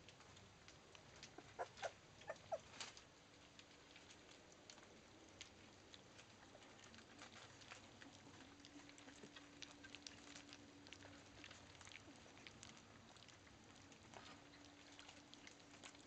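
Young Labrador puppies eating soft food from a steel bowl, with faint scattered lapping and smacking clicks. A few short squeaks or whimpers from the pups come about two seconds in and are the loudest sounds.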